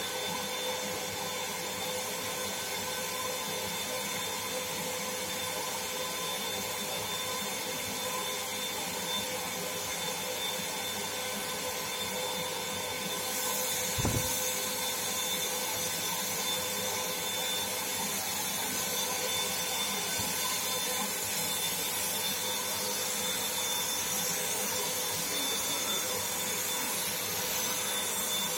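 Black+Decker HVLP400 electric paint spray gun running steadily, its turbine giving a constant whine and rush of air while it sprays paint. A brief low thump comes about halfway, after which the high hiss is stronger.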